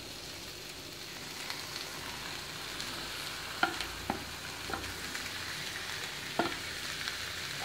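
Raw chicken pieces sizzling as they go into a hot pan of fried masala, a steady frying hiss that grows a little louder. A few sharp knocks of a spatula against the plastic tray and pan.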